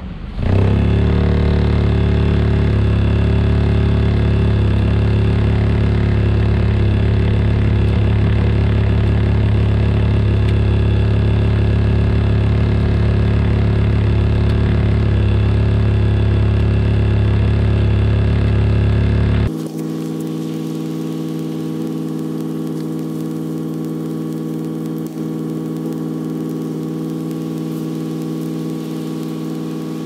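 Plow truck's engine running at a steady speed with a constant hum. About two-thirds of the way through it changes suddenly to a quieter steady hum of a different pitch.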